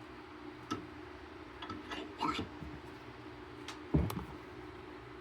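A bench vise being worked by hand: a few scattered metal clicks and knocks from the screw and handle, the loudest knock about four seconds in.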